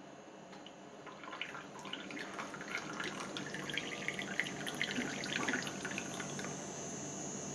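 Moka pot sputtering as coffee spits and gurgles up into the upper chamber, in irregular crackling spatters that start about a second in and grow denser.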